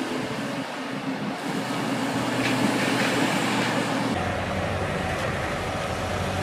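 Heavy machinery engine running steadily, with an abrupt change about four seconds in to another machine's steady running.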